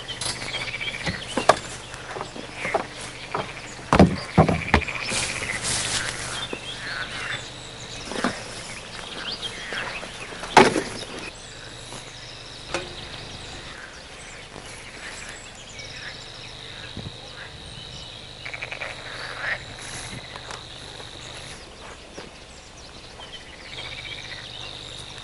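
Rustling and a series of sharp knocks from hands working at wooden boxes, the loudest about four and ten seconds in. After that, a steady high-pitched insect trill carries on in the background.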